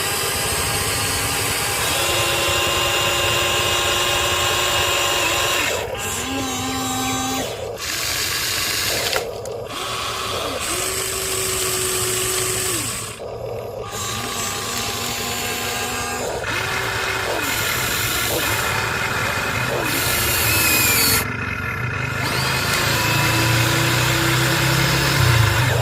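Small electric motors of a radio-controlled model excavator and dump truck whining as the machines move. The whine starts and stops every few seconds and changes pitch with each move.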